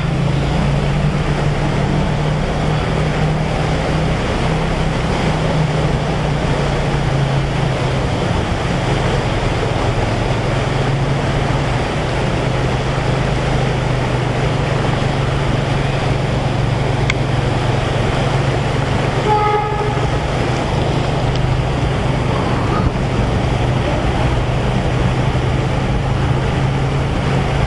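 Motorcycle engine running steadily as it wades through street floodwater, under a constant rush of water spraying off the front wheel. About twenty seconds in, a vehicle horn gives a short toot.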